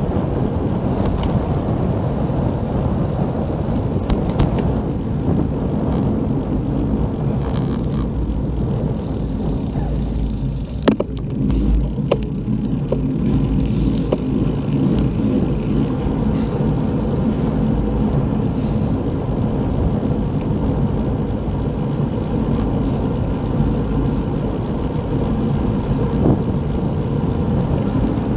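Steady wind rumble on the microphone and tyre noise from a bicycle rolling along a tarmac road, with a single sharp knock about eleven seconds in.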